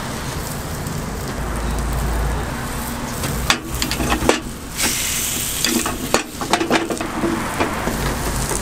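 Bungeoppang batter sizzling in hot fish-shaped baking molds: a steady hiss, broken by several sharp clacks about halfway through.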